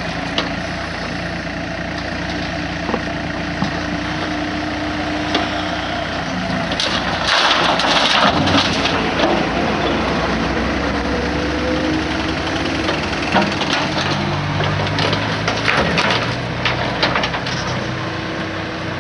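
A machine engine running steadily at the road repair works. Over it come bursts of crunching and scraping, as of material being dug or broken: the loudest about seven to nine seconds in, and more near the three-quarter mark.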